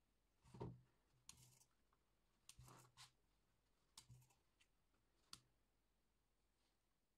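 Faint clicks and taps of sewing pins being pulled from a magnetic pin holder and pushed through cotton fabric on a tabletop, about half a dozen brief clicks spread over the first five seconds.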